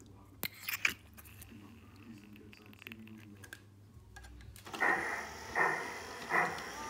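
Piko G-scale BR 80 model steam locomotive starting to chuff about four and a half seconds in, a steam-exhaust puff roughly every three-quarters of a second. Before that there are two short clicks of handling.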